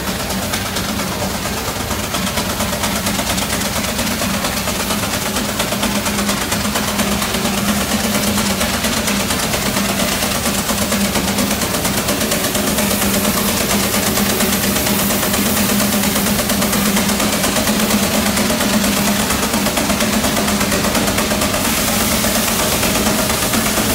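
Steam traction engine working under load as it pulls a weight-transfer sled, with a steady low mechanical drone that grows slightly louder over the first few seconds. Near the end a rush of hiss joins in as steam vents.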